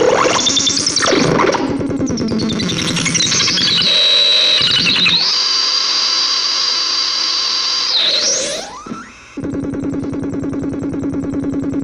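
Homemade noise oscillator squealing and sweeping in pitch as its knobs are turned. A steady high whine holds for a few seconds, followed by a fast rising sweep. It then drops away for a moment and settles into a steady low, fast-pulsing buzz for the last couple of seconds.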